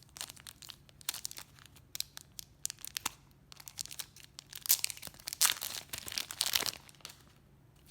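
Thin plastic card sleeves crinkling and crackling as sleeved trading cards are handled and flipped through: a run of sharp crackles, densest about five to seven seconds in.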